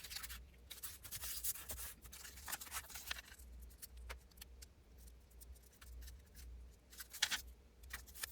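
Paper being handled and cut by hand: faint scratching, rustling and small clicks, busiest in the first three seconds and again briefly near the end.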